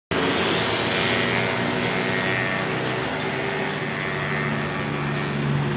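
Tour bus diesel engine running steadily, a low even hum with a hiss above it.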